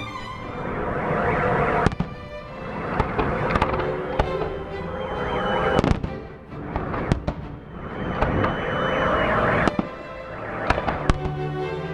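Fireworks salute: shells bursting in sharp bangs every second or two, with crackling between them, while music plays.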